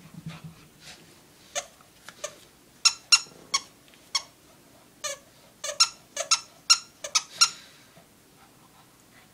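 A squeaker in a plush dog toy squeaking over and over as a Shih Tzu bites and chews on it: about fifteen short, high squeaks in uneven clusters, quiet in between.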